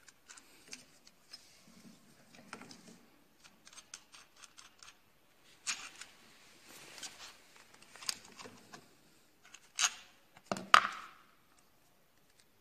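Hands fitting a pedal onto an air bike's right crank arm: scattered small clicks, rubbing and metal clinks, with a sharper knock near the end.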